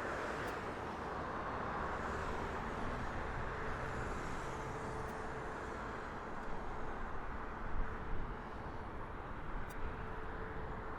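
Steady outdoor rumble of road traffic with a faint steady hum, swelling slightly now and then.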